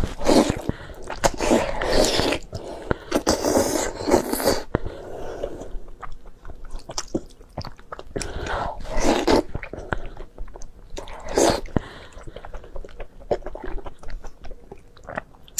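A person chewing and biting food close to the microphone, in wet bursts that are thickest over the first five seconds, with more about nine and eleven seconds in.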